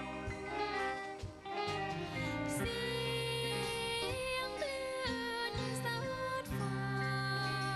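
Band music from a Thai popular song's introduction: a melody of held notes, some bending in pitch, over a steady bass line.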